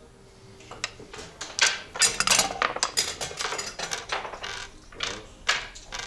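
Wooden backgammon checkers clacking against the board as they are moved, with dice thrown across the board; a quick run of sharp clicks and rattles starts about a second in.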